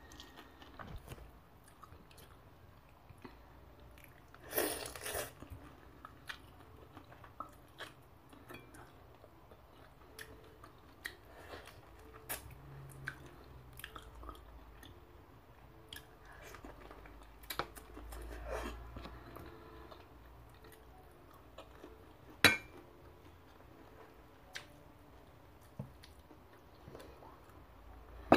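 A person eating with her hands: quiet, intermittent chewing and mouth sounds with many small clicks, a louder crunchy burst about five seconds in and a sharp knock a little past twenty seconds.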